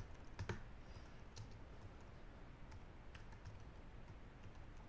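A few faint, scattered keystrokes on a computer keyboard as a shell command is typed, the loudest about half a second in.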